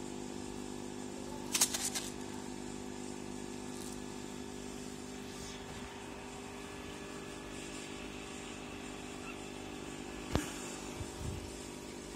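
Steady electrical hum of aquarium equipment such as the filter or air pump, holding several fixed tones. A short cluster of clicks comes about a second and a half in, and a single sharp click near the end.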